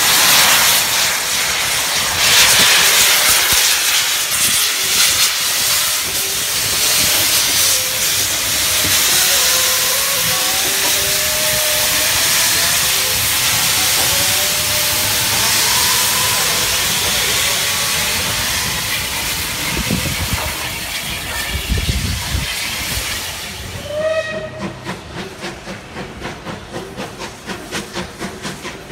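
Steam from a Bulleid Battle of Britain class light pacific's open cylinder drain cocks, a loud steady hiss as the locomotive gets under way. About four seconds from the end it gives way to a short steam whistle, then a steam locomotive working in the distance, its exhaust beats about two a second.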